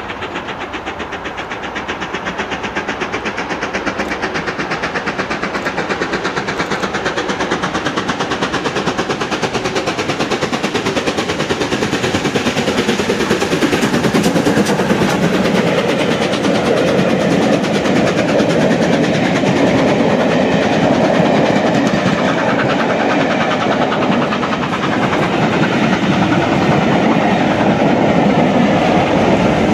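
LNER B1 class 4-6-0 steam locomotive 61306 Mayflower working hard as it accelerates, its exhaust beating in a fast, even rhythm that grows louder as it approaches and passes about halfway through. The train of coaches then follows, its wheels rumbling over the rails.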